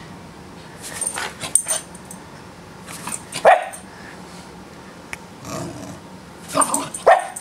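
Pembroke Welsh Corgi puppy giving a run of short, playful barks and yips at a person's moving feet, in about four bursts, the loudest a falling yelp about three and a half seconds in.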